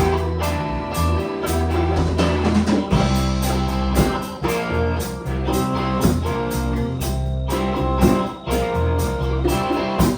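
A band playing an instrumental passage: guitar over held bass notes and a drum kit keeping a steady beat.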